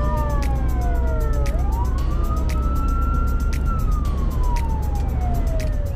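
Ambulance siren wailing, its pitch slowly rising and falling, heard from inside the ambulance's cab over steady engine and road rumble. Regular clicks tick along with it.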